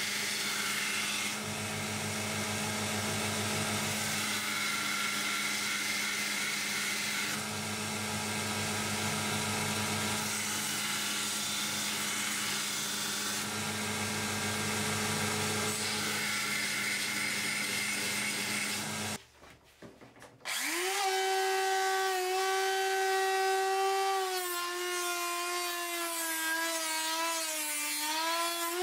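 Belt grinder running with a steady hum while its sanding belt grinds a small steel part, the sound shifting as the metal is pressed on and lifted off. After a brief near-silent gap, a handheld Graphite rotary tool spins up and runs with a high whine that wavers and dips as its small abrasive wheel grinds the steel, throwing sparks.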